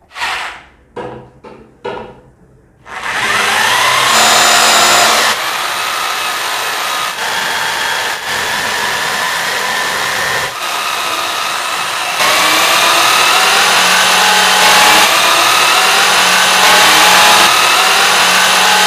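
Rotary hammer drill, fitted with a keyed chuck adapter and set to drill mode, starts about three seconds in after a few short clicks. It then runs under load as a metal bit cuts through a 5 mm steel plate, its whine rising and falling in pitch.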